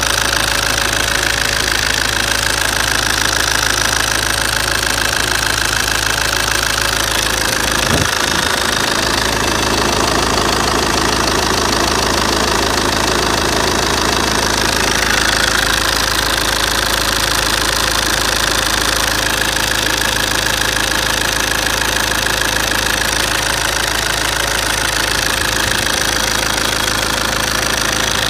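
1.9 CDTi four-cylinder turbodiesel engine idling steadily with a ticking noise from its top end.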